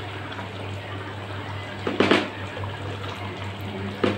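Wooden spatula stirring thick chicken curry gravy in a pan: wet sloshing and scraping over a steady low hum, with two louder knocks or scrapes against the pan, about two seconds in and near the end.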